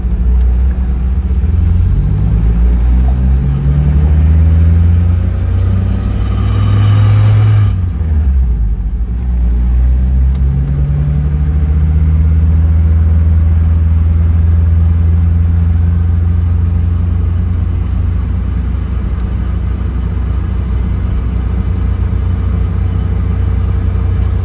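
Mazda MX-5 (NC) with a swapped-in 2.5-litre four-cylinder engine, heard from inside the cabin as it accelerates. The engine note rises for the first several seconds, falls away about eight seconds in, climbs again and then settles into a steady cruise.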